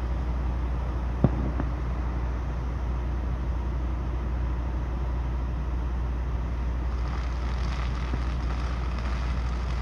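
Steady low rumble of an idling vehicle engine, with one sharp pop about a second in and a rise in road hiss near the end.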